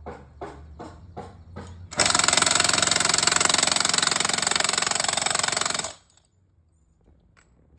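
Milwaukee impact wrench hammering for about four seconds while driving a Pylex steel screw pile into the ground, then stopping abruptly. Before it starts there is a run of light knocks, about three a second.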